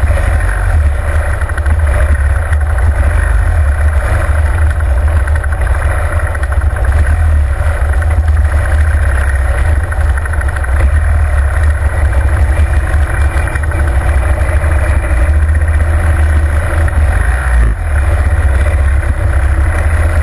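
Harley-Davidson Fat Bob's V-twin engine running steadily as the bike rides at low speed, heard from on the motorcycle, with a brief dip in level near the end.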